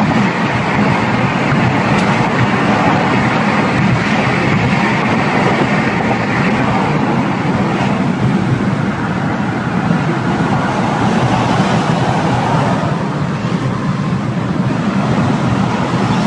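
Steady, loud rumble of engine and road noise inside a moving vehicle's cabin, with no distinct impacts.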